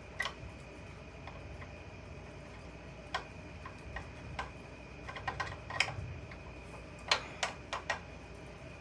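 Sparse metallic clicks and clinks of a ratchet and socket extensions being handled on a stuck engine bolt, with small clusters of quick clicks about five and seven seconds in. A faint steady high tone runs underneath.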